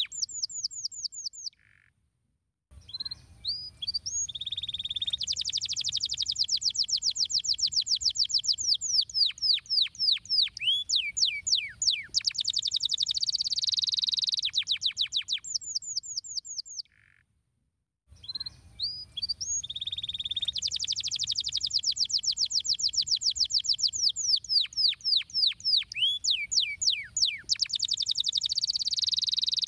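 Domestic canary singing: long phrases of rapid trills, fast runs of repeated high notes and swooping notes. The song pauses briefly twice, and the same sequence of phrases follows each pause.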